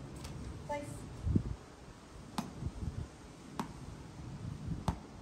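A ball bounced by hand on a concrete patio: three sharp bounces about a second and a quarter apart in the second half.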